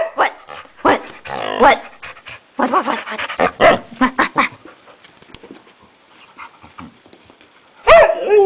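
Puppy vocalising in short bursts of barks and pitched whining calls over the first few seconds. After a quieter stretch, a loud call comes near the end.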